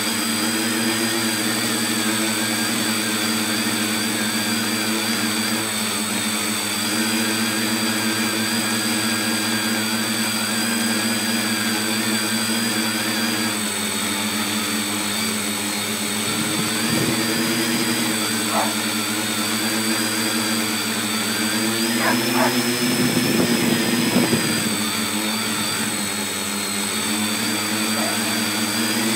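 Tricopter's three electric motors and propellers running in flight, heard close up from a phone mounted on the frame: a steady multi-tone hum whose pitch wavers slightly with throttle. About 22 seconds in it rises in pitch and gets louder with a rougher rush for a few seconds, then settles back.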